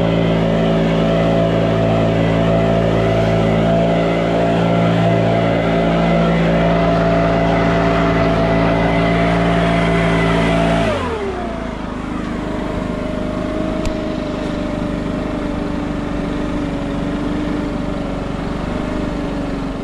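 A small engine revs up and runs at a steady high speed. About eleven seconds in it drops back to a lower, steady running speed.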